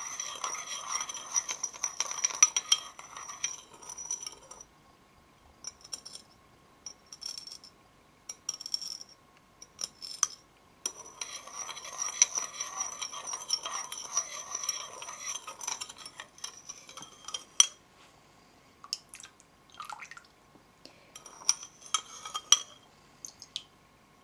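Metal spoon stirring sugar and warm water in a ceramic bowl, scraping against the bottom and sides of the bowl while the sugar is not yet fully dissolved. The steady stirring runs for the first few seconds and again for about five seconds in the middle, with scattered taps and clinks of the spoon on the bowl in between and near the end.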